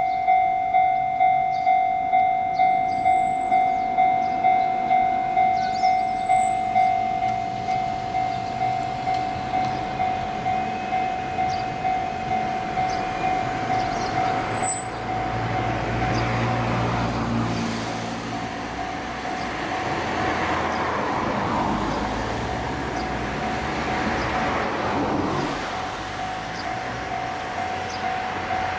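Japanese railway crossing alarm ringing a steady electronic clang about twice a second. From about halfway a train passes over the crossing, and its rumble and wheel noise swell over the bell, which keeps ringing.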